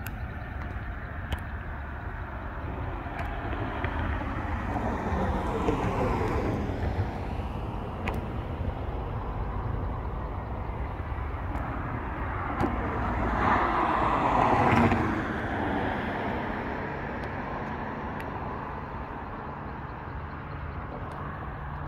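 Road traffic: cars passing the microphone over a steady low traffic rumble, with two louder pass-bys, one about five seconds in and a louder one about fourteen seconds in.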